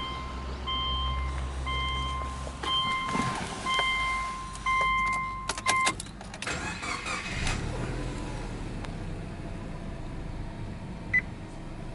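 Car warning chime beeping about every two-thirds of a second, then clicks as the key is turned and the Subaru Legacy 2.0GT's EJ20 turbocharged flat-four cranks and starts about six seconds in, settling into a steady idle near 1,000 rpm.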